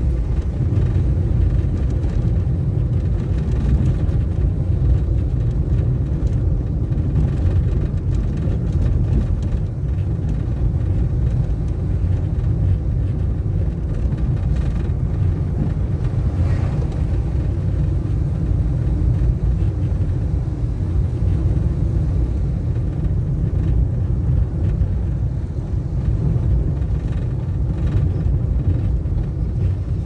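Nissan March (Micra) driving, heard from inside the cabin: a steady low rumble of engine and road noise that barely changes.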